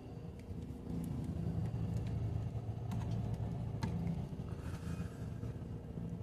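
Coach bus engine running, heard from inside the passenger cabin, a steady low hum that grows louder about a second in. A few small clicks and rattles sound over it.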